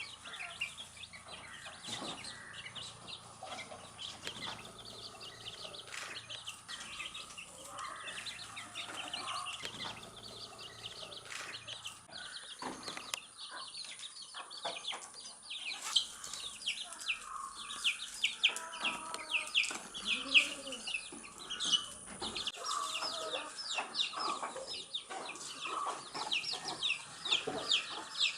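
Baby chicks peeping: many short, high, falling chirps that grow busier and louder about halfway through, with a few lower calls mixed in.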